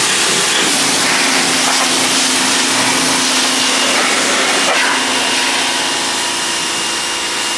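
Pressure washer spraying a steady jet of water onto a car's engine bay and front frame, rinsing off degreaser: a loud, continuous hiss of spray on metal, with the washer's motor humming steadily underneath.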